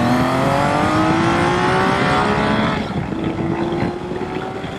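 Honda CBX1000's inline-six engine pulling hard under acceleration on the road, its pitch climbing steadily. About three seconds in the pitch drops suddenly with an upshift, and the engine runs a little quieter as it starts to climb again.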